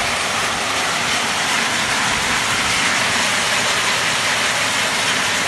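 Heavy rain pouring down onto a road, a loud, steady, dense hiss.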